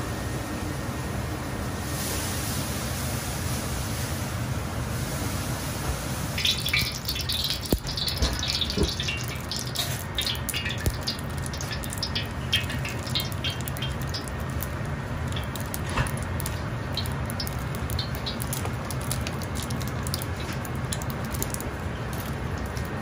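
Steady rush of a gas wok burner. From about six seconds in, olive oil is poured into the hot carbon-steel wok and crackles and spits, densest at first and then thinning.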